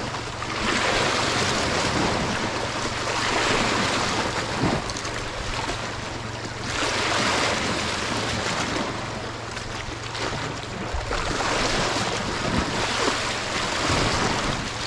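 Sea waves washing in, the rush swelling and fading every two to four seconds, with a low steady hum underneath.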